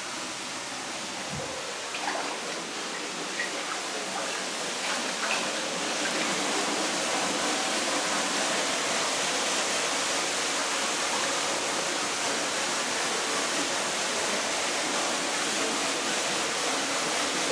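Floodwater rushing and pouring steadily, a constant hiss of running water that gets a little louder about five seconds in.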